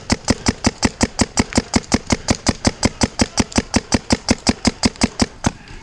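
Paintball marker firing a rapid, even stream of shots, about eight a second, stopping shortly before the end: sustained fire to keep an opponent pinned behind a tree.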